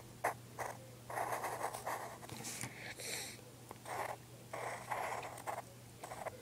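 Pencil scratching on paper in short, irregular strokes as a pair of shoes is drawn, in bursts of several strokes separated by brief pauses.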